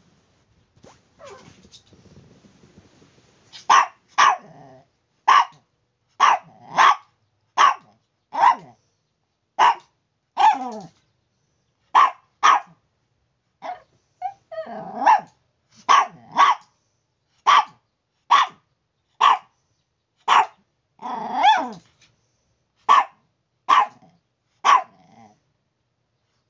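Chihuahua barking repeatedly in short, sharp barks, roughly one a second, with a couple of longer, growly barks among them. The barking starts a few seconds in, after faint noise.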